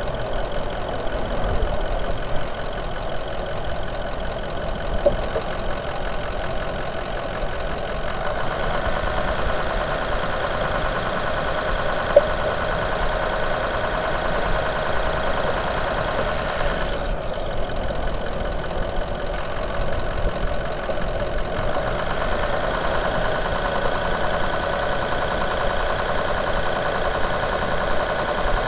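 Ford Power Stroke V8 turbo diesel engine idling steadily with diesel knock, heard close up under the open hood.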